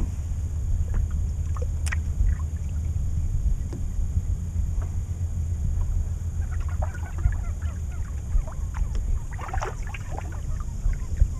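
Steady low rumble of wind and water around a small boat on open water. A few short, chattering bird calls come around seven seconds in and again around ten seconds in.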